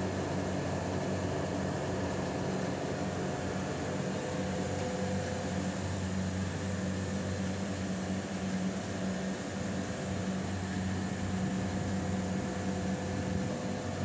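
Carrier 30GT air-cooled chiller running: a steady low mechanical hum over an even hiss, unchanging throughout.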